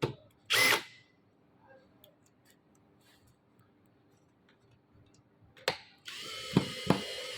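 Cordless drill driver screwing a soffit panel to the frame: a short burst about half a second in, then a steady whirr for about a second and a half near the end, with two sharp knocks as the screw drives home.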